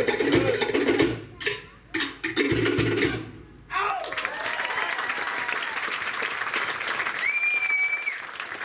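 Cook Islands drum ensemble playing a fast, even beat that breaks about a second in into a few spaced closing strokes. From about four seconds in the audience applauds and cheers, with one whistle near the end.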